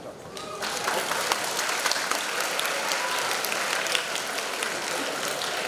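Audience applauding, the clapping rising about half a second in and then holding steady.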